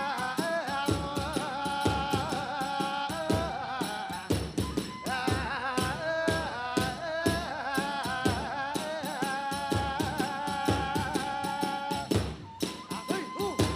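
Hiroshima kagura music: a wind melody of long held notes over a fast, steady beat of drum strokes and small hand cymbals.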